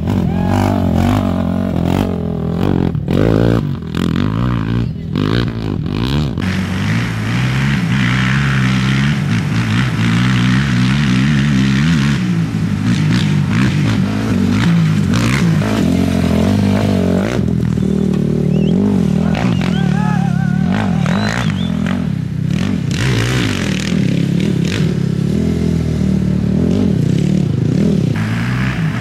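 Off-road race motorcycles and quads passing at speed on a dirt course, their engines revving, rising and falling in pitch as each goes by.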